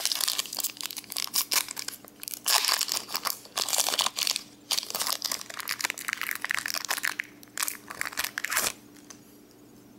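Foil wrapper of a Pokémon TCG Crystal Guardians booster pack crinkling and tearing as it is ripped open by hand, a dense run of crackles that stops about nine seconds in.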